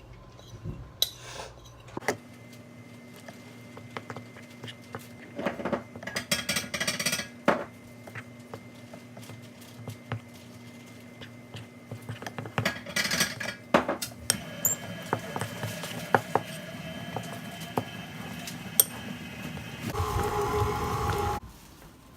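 Kitchen clatter: scattered clinks and knocks of dishes and utensils over a faint steady hum. Near the end a louder, even sound with several held tones runs for about a second and a half and stops abruptly.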